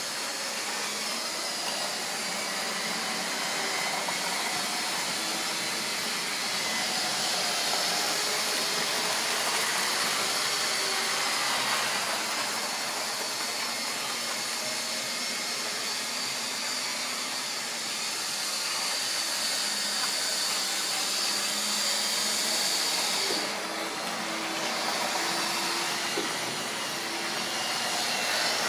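Model railway goods train running round the track: a steady whirring of the locomotive's small electric motor, with the hiss and rumble of the wagons' wheels on the rails.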